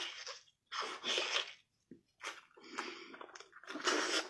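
A small child biting and chewing on a braised pork knuckle, the mouth sounds coming in several short spells, the loudest near the end.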